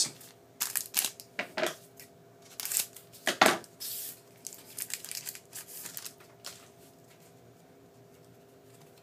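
A silver foil trading-card pack being torn open and its wrapper crinkled, then the cards slid out and handled. Sharp crinkles and rustles come in quick clusters for about the first six seconds, loudest around three and a half to four seconds in, and then it goes quiet.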